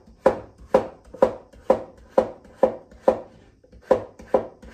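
Kitchen knife slicing an overgrown cucumber into thick diagonal slices on a cutting board. Each cut ends in a sharp knock on the board, about two cuts a second, with a brief pause a little past halfway.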